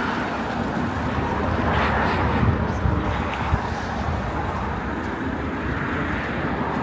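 Steady low rumble of a tourist road train's engine running.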